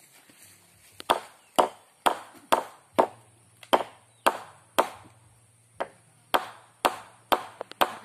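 Hammer blows on wood at the base of an upright wooden post, about fifteen sharp strikes at roughly two a second, with a short pause midway.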